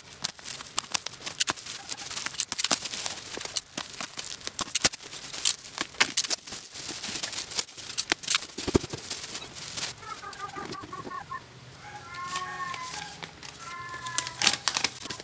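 Black bubble wrap crinkling and crackling as it is cut with a utility knife and pulled apart by hand, a dense run of sharp crackles for about the first ten seconds. After that the handling turns quieter, and short repeated bird calls come in the background.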